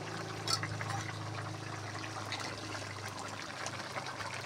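Small irregular wet clicks and slurps of thick coconut-milk stew in a pot, stirred or spooned, over a low steady hum that fades about three and a half seconds in.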